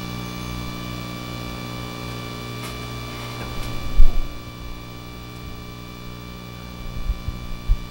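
Steady electrical mains hum from the church's amplified sound system, with a loud low thump about halfway through and a few softer thumps near the end.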